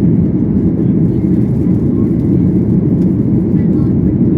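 Steady cabin noise of a Boeing 737-800: engine and airflow noise heard from inside the passenger cabin as a deep, even rumble.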